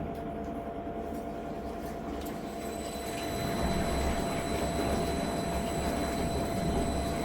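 Commercial washing machine running with a steady low rumble and a constant hum, growing louder about three seconds in.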